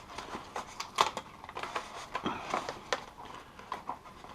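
Scattered light clicks, taps and crackles of packaging being handled as a foam model plane's wheel is worked free of its taped packing block.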